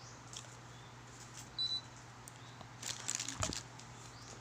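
Ultrasonic aroma diffuser humidifier being plugged in and handled: a short high electronic beep about one and a half seconds in, then a cluster of clicks and rustles around three seconds in, over a steady low hum.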